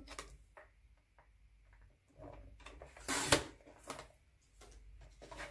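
Rail paper trimmer cutting a sheet of heavy white cardstock: a short swish of the blade running along the rail about three seconds in. Faint taps and rustles of the card being laid against the trimmer come before it, and a few small clicks after.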